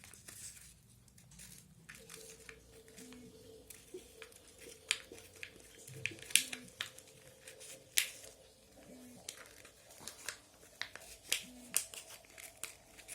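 Homemade glue slime being handled and stretched: irregular sticky clicks and small snaps, a few of them sharper, over a faint steady hum that comes in about two seconds in.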